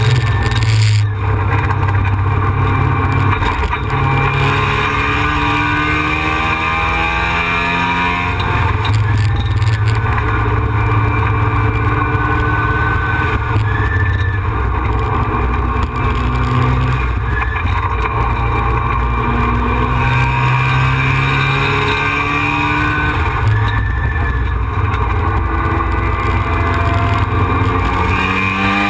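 Mazda RX-7 FD's twin-turbo rotary engine heard from inside the cabin at track pace, its note rising again and again as the car drives through corners, with a brief break for a gear change about a second in and a steep climb in revs near the end. A steady low rumble of road and wind noise runs under it.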